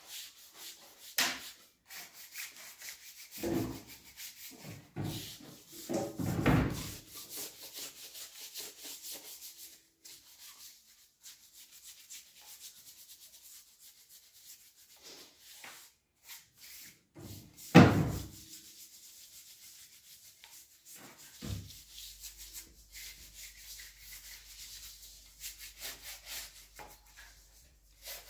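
Hand wire brush scrubbing a grimy metal milling-machine table part, a scratchy on-and-off rubbing, broken by a few sharp knocks, the loudest about two-thirds of the way through.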